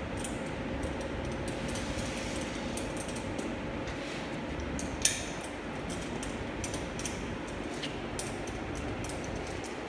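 Light metal clicks and clinks from a swivel caster wheel, its screws and a screwdriver being handled while the caster is fitted to a metal panel, with one sharper clink about five seconds in, over a steady background hum.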